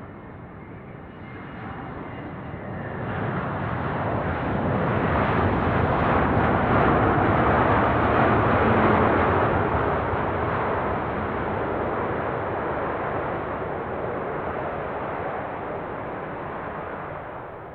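An airplane's engines passing close by: the roar swells over a few seconds, is loudest around the middle, then slowly fades and drops away near the end.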